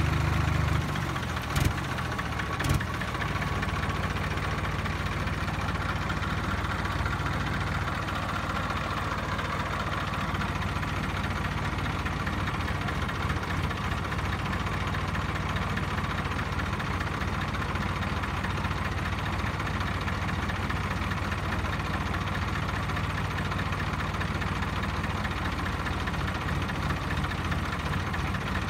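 Tractor diesel engine idling steadily. It eases down about a second in, and two sharp knocks sound shortly after.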